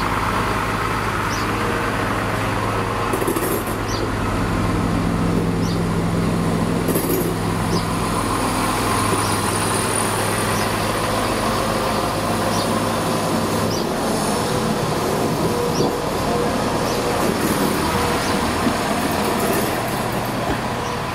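Class 170 Turbostar diesel multiple unit moving slowly along a platform, its underfloor diesel engines giving a steady low hum. About fourteen seconds in, the hum gives way to a broader rumble of the unit rolling in on the track.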